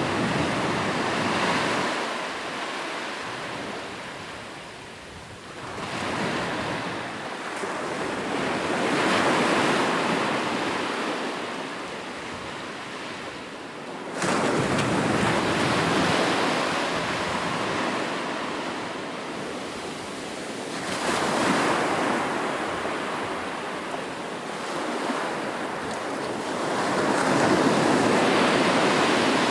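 Sea waves surging in and washing back, the surf noise swelling and fading every several seconds, with one surge arriving abruptly about halfway through.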